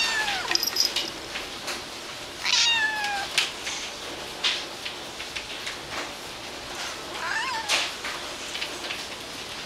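Domestic cat meowing three times, each call falling in pitch: one at the very start, a long high one about two and a half seconds in, and a shorter one near the end. A steady hiss of rain with scattered sharp taps runs underneath.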